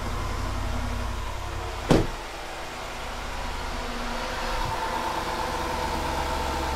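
2013 Range Rover Sport's 5.0-litre V8 idling steadily just after an oil change and restart, sounding good. A single sharp thump about two seconds in, as the car door is shut; from about four seconds a high steady whine from the engine bay comes up.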